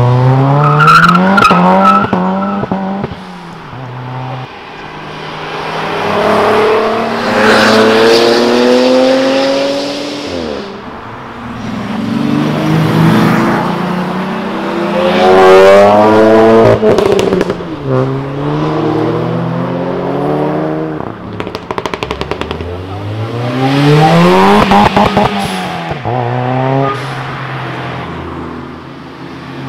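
Several tuned cars, a VW Golf Mk2 among them, accelerating hard past one after another, each engine revving up through the gears with drops in pitch at the shifts, then fading as it goes by. There are bursts of sharp exhaust cracks and pops at a few of the passes.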